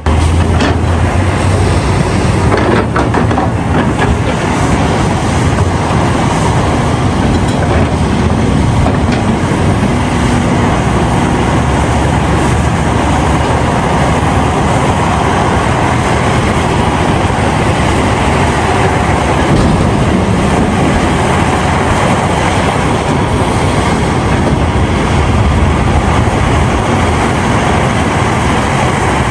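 A CAT 352F hydraulic excavator working at steady load. The diesel engine and hydraulics run loud and unbroken as the bucket digs into broken rock and ore.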